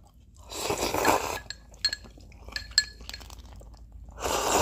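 Chopsticks clinking against a ceramic bowl, about four light ringing taps in the middle, between noisy slurps of noodles and broth from the bowl.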